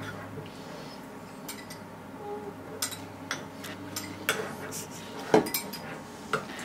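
A spoon clinking and knocking against a bowl while slime is stirred, in irregular, scattered taps with one louder knock near the end.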